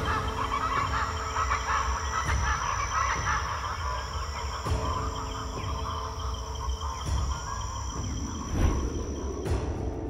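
Many birds calling at once in a dense chatter, over a steady high-pitched tone and a low rumble.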